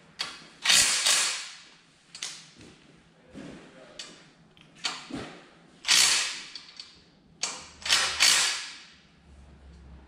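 Power drill fitted with a 7/16 socket, run in short bursts to tighten bolts through an L bracket into the partition frame. The loudest runs come about a second in, at about six seconds and at about eight seconds, with shorter ones between.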